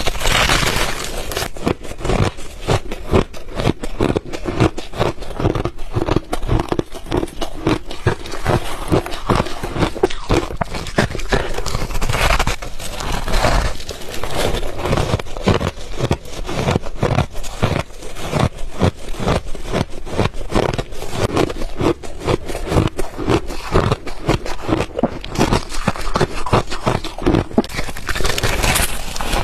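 Refrozen ice being chewed close to the microphone: a continuous run of sharp, crackling crunches, several a second.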